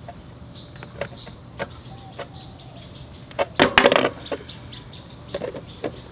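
Clear plastic bag crinkling and rustling while held under a scooter's gear-hub drain bolt, with scattered small clicks and the loudest burst of crackling about three and a half to four seconds in.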